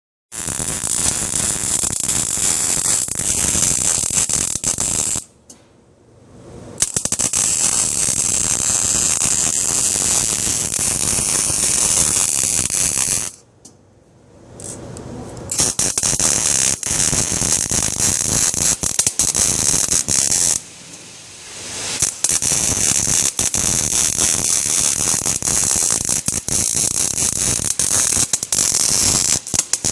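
Electric arc welding: a steady crackling, frying hiss full of fast pops, stopping briefly three times and then striking up again.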